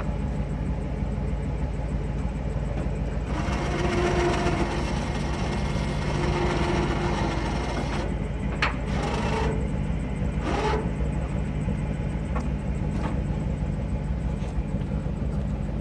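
Truck engine idling steadily while the truck-bed crane's electric winch runs with a whir for about five seconds, starting a few seconds in; then a couple of sharp knocks as the load is handled.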